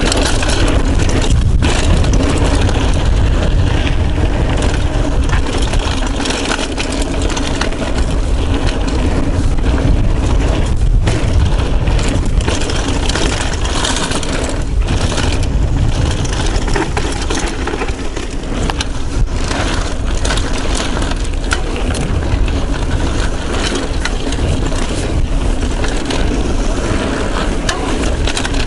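Wind rushing over a chest-mounted action camera's microphone and mountain bike tyres rolling on dry dirt singletrack during a descent, with frequent rattles and knocks from the bike.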